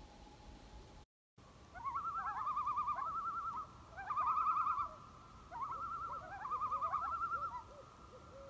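Common loon giving its tremolo: three bouts of a rapid, wavering call, starting about two seconds in.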